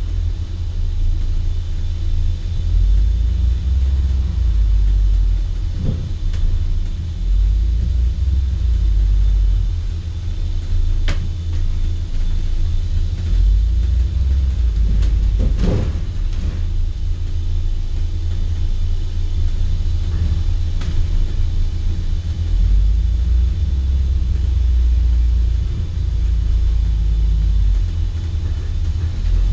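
Riding inside a moving bus: steady low rumble of the engine and road. A few brief knocks and rattles come through, the loudest about halfway through.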